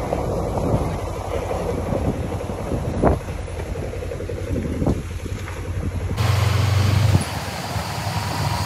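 Wind buffeting the microphone over a small motorbike engine running, heard from a moving motorbike. A couple of brief knocks come about three and five seconds in, and the sound changes abruptly about six seconds in.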